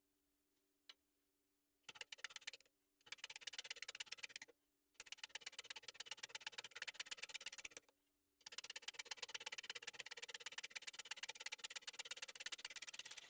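A turning gouge roughing a spinning, out-of-round red oak bowl blank on a lathe. It makes rapid tapping as the tool strikes the high spots of the uneven blank, in four passes broken by short pauses, over a faint steady lathe motor hum.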